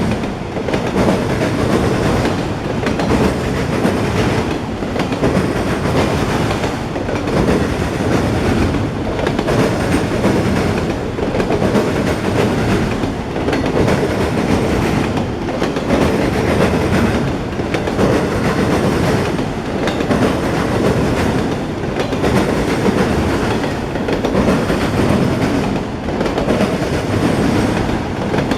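Freight train of autorack cars rolling past, steel wheels clattering over the rail joints. The noise swells and dips about every two seconds as each long car goes by.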